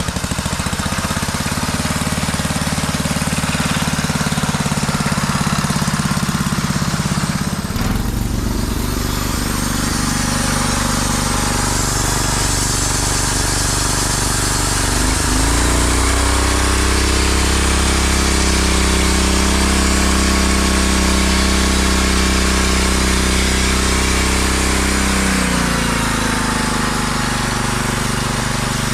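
Homemade band sawmill running under power as its blade cuts through a log, a steady engine-like drone whose pitch shifts a few times as the load on the blade changes, about eight seconds in, around fifteen seconds and again near the end.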